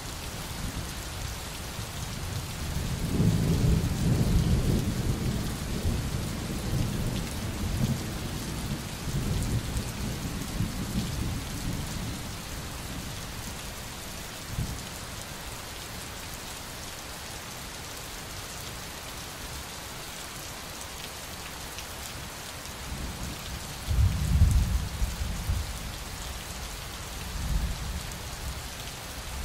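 Steady rain with thunder: a low rumble swells about three seconds in and fades away by about twelve seconds, a louder one comes about twenty-four seconds in, and a shorter one follows near the end.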